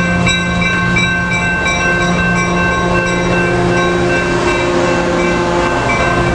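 Coaster commuter train's bilevel passenger cars rolling past close by, loud and steady, with several held tones over the rumble. There are regular wheel clicks over the rail joints in the first second or two, which then fade.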